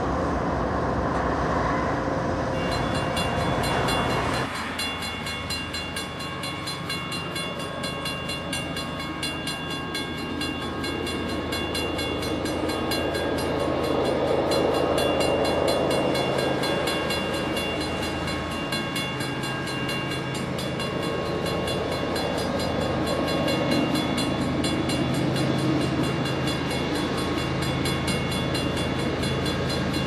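Diesel freight locomotives running. First, BNSF units pass at close range; after an abrupt change about four seconds in, a CSX lead diesel locomotive approaches with a steady engine drone and a high whine over it.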